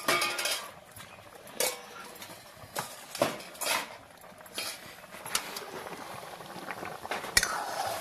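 Stainless-steel cooking utensils clinking and knocking against one another, a sharp clink every second or so at an irregular pace.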